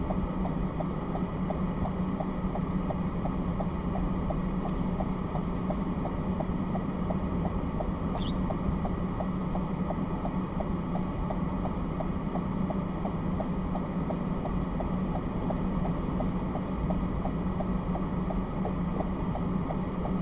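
Car on the move, heard from inside the cabin: steady road and engine noise with a low hum, and a light, even ticking at about two to three ticks a second.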